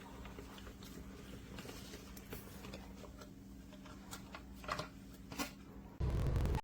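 Faint scattered clicks and light taps over a steady low hum. A few sharper clicks come near the end, then a short loud burst of noise that cuts off suddenly.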